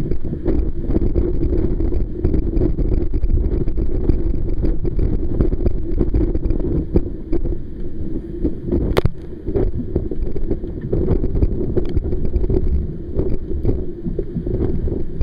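Strong wind buffeting the microphone on a heeled sailing yacht in rough sea, over the rush of water along the hull. Spray and waves slap against the boat now and then, with a sharp click about nine seconds in.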